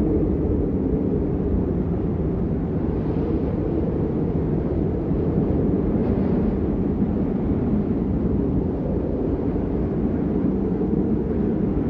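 Blizzard wind blowing steadily in a low, dense rumble, with no gusts or breaks.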